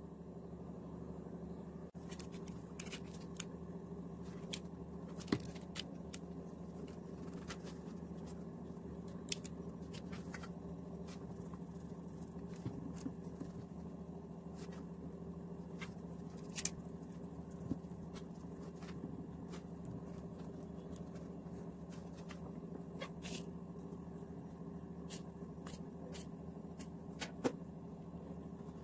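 A silicone spatula pressing and smoothing soft coconut burfi mixture in a metal baking tray: scattered light clicks and scrapes. A steady low hum runs underneath.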